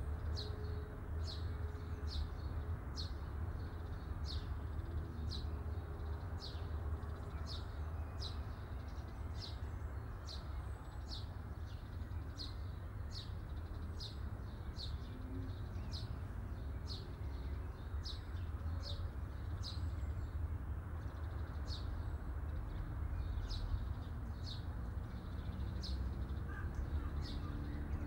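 A bird repeating a short high chirp about every three-quarters of a second, over a steady low rumble.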